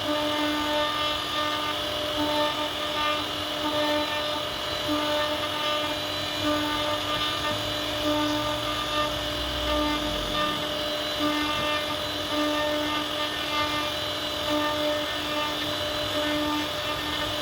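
CNC router spindle running steadily as the bit carves wood: a continuous motor whine with evenly spaced overtones that swells and eases in loudness as the cut goes on. There is a brief low rumble about eight seconds in.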